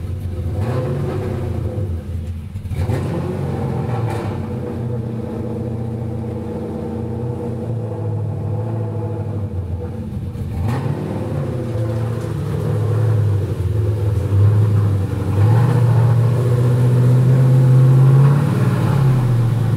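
The 2000 Mustang Cobra R's V8, now running a 5.8-litre aluminium block, rumbling at low revs with small rises and falls in engine speed as the car creeps forward under light throttle; it grows louder in the second half as the car closes in.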